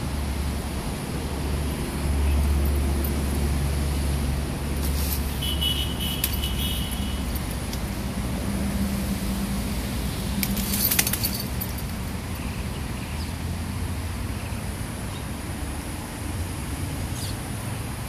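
Steady low outdoor rumble, with a few faint clicks and a brief high chirp about five and a half seconds in.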